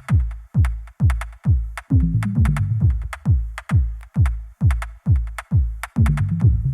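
Electronic background music with a steady drum-machine beat: deep kick drums about two and a half times a second under a synth bass line and a held pad.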